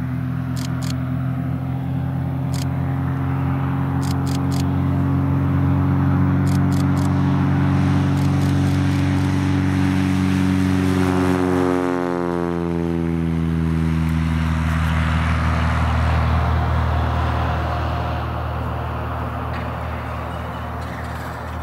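Cessna 182P Skylane's six-cylinder Continental O-470 engine and propeller at full takeoff power, growing louder on the takeoff run, dropping in pitch as the aircraft passes about twelve seconds in, then fading as it climbs away.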